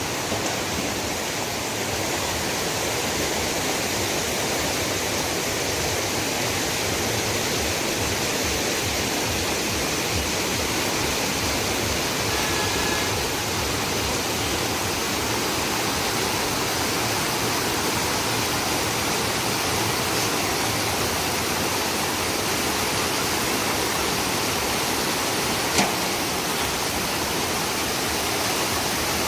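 Shallow rocky river rushing over boulders in white-water rapids: a steady, unbroken rush of water. One brief click near the end.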